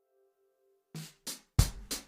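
Background music with drum hits. A faint held tone comes first, then two light percussive strikes about a second in and a much louder hit near the end.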